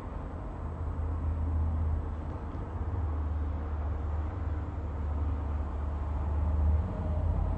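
Steady low background rumble, with no distinct events.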